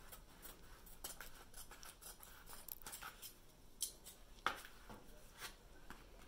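Scissors cutting along the first pleat of a 3M Filtrete 1900 pleated air filter: a run of faint short snips, with a few louder ones around four to five and a half seconds in.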